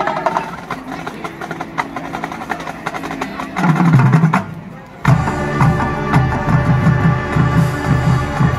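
Marching band playing: percussion with sharp clicks and a loud low hit, then about five seconds in an abrupt switch to a fuller sustained band sound over a steady low beat.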